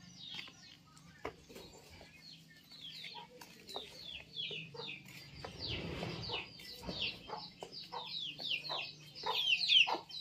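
Young chicken peeping: a steady run of short, high, falling peeps, several a second, getting louder near the end.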